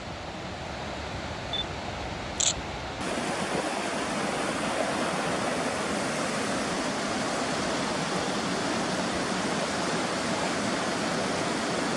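Steady rushing of a mountain creek tumbling over rocks just above a waterfall. The creek is Illilouette Creek at the head of Illilouette Fall. It becomes louder and fuller about three seconds in, just after a single short click.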